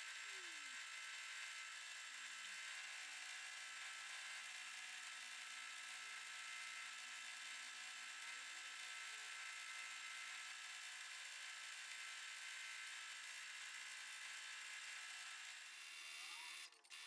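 Domestic sewing machine running fast and steadily during free-motion stitching, a high, even whir. The sound cuts out briefly near the end.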